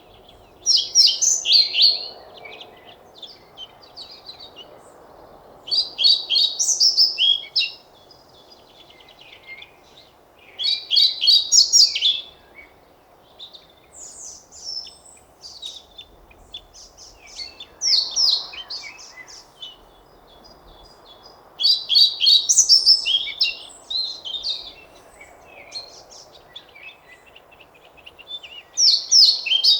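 European pied flycatcher singing: short, high, rapid song phrases of about one and a half to two seconds, repeated six times at intervals of a few seconds, with quieter chirps in between.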